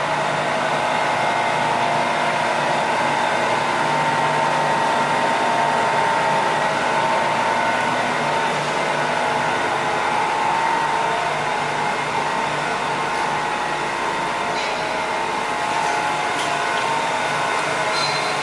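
Bavelloni PR 88 vertical glass edging machine running, a steady motor whir with several constant tones from its spindle motors and conveyor drive.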